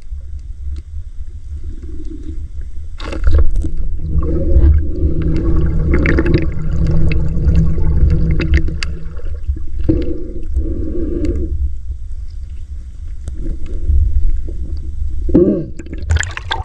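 Sea water sloshing and gurgling right at the microphone over a constant deep rumble, louder and busier from about three seconds in.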